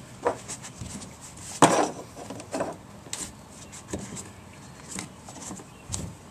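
Handling noise: scattered knocks, clicks and rubbing as a shop rag is worked over the plastic top of a fuel pump seated in the fuel tank. The loudest knock comes about a second and a half in.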